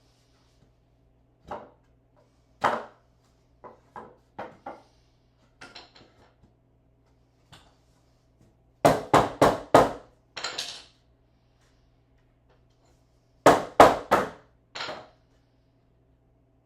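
Scattered light knocks, then a quick run of four hard hammer blows, about four a second, and a few seconds later another run of three.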